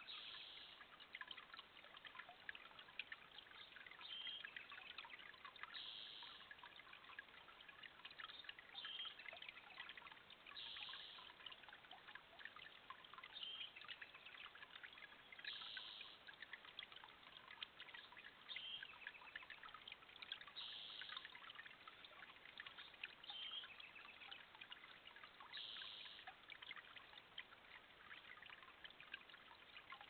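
Faint dawn chorus: a bird repeats a short, high song phrase about every five seconds, over a steady trickle of water and scattered small chirps.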